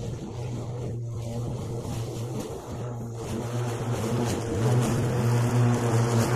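Battery-electric Ryobi ride-on lawnmower cutting long, wet grass, its blade motors giving a steady hum that grows louder as the mower drives closer.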